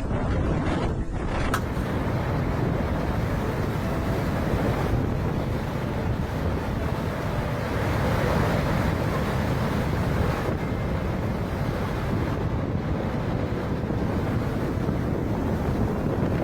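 Steady rushing wind noise on the microphone, mixed with the sound of sea waves.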